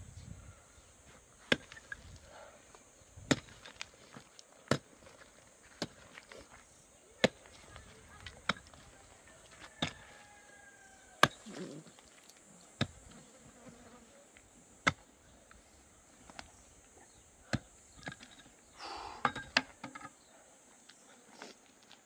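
A long-handled mattock chopping into dry, stony soil: single sharp strikes, one about every second and a half. A short scraping rustle comes near the end, just before the strikes stop.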